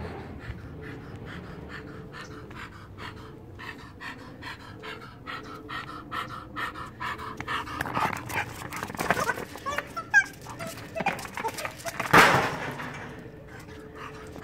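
English bulldog panting in a quick, even rhythm. In the second half louder, irregular sounds break in, the loudest a brief burst about twelve seconds in.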